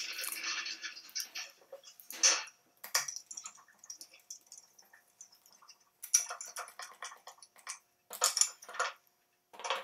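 Small metal screws and washers clicking and clinking, with scraping and handling noises, as they are fitted and driven with a screwdriver into a quadcopter's plastic body. The clicks come in irregular clusters, with the loudest near the end.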